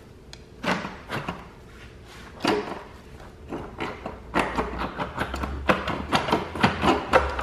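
Plastic intake manifold of a BMW M54 engine being worked loose by hand, knocking and rattling against the engine. There are a few knocks at first, then quicker and louder ones from about four seconds in.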